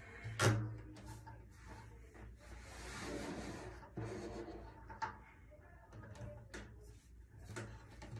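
Drum set hardware being handled and adjusted: a sharp knock about half a second in, a rustling scrape around three seconds in, then several lighter clicks and knocks.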